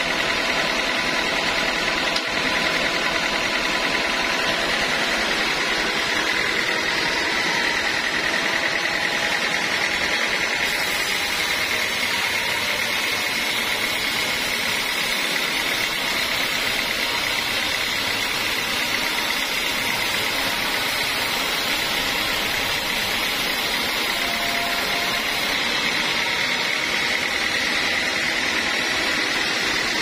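Band sawmill running and cutting lengthwise through a dry teak slab, a steady noisy whine with a high tone.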